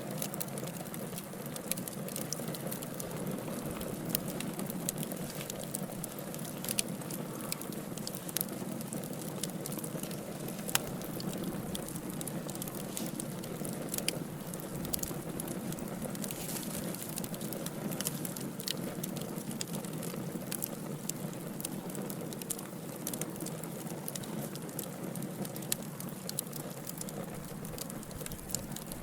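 Wood fire of burning logs crackling, with a steady low rush of flames and frequent sharp pops and snaps at irregular intervals.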